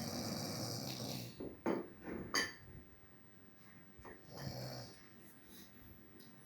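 A man snoring in his sleep. A long snore carries on through the first second or so, two short sharp breaths follow around two seconds in, and a shorter snore comes about four and a half seconds in.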